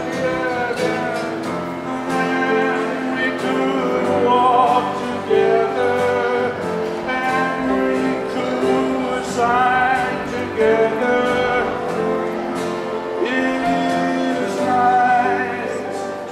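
Singing over instrumental backing music, with a melody that wavers in vibrato above steady accompanying notes.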